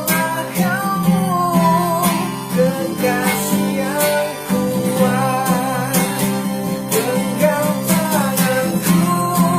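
A man singing long, wavering held notes over acoustic guitar accompaniment, an Indonesian pop ballad.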